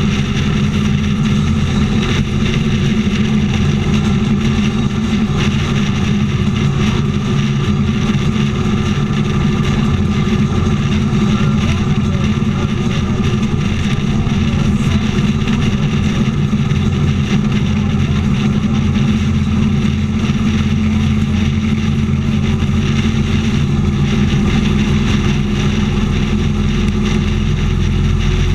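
Motorcycle engine running at a steady highway cruising speed, heard from on board the bike, with constant wind and road noise and no change in revs.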